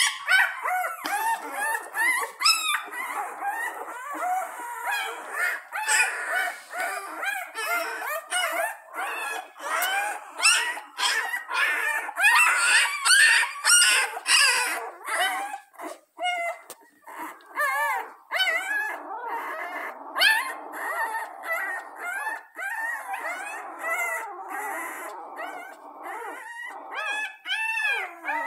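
A litter of young puppies squealing and whimpering, many high-pitched cries overlapping without a break: discontented squeaking.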